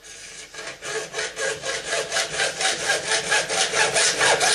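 Hand hacksaw cutting through 1-inch PVC pipe in quick, even back-and-forth strokes, starting at once and growing louder over the first second or so.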